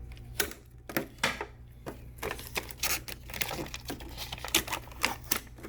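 Packing tape and plastic packaging being pulled off a new sewing machine: irregular crinkling and tearing crackles.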